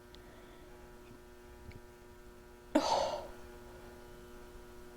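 Refrigerator running with a steady, faint hum of several even tones. A short breathy gasp or sigh comes about three seconds in.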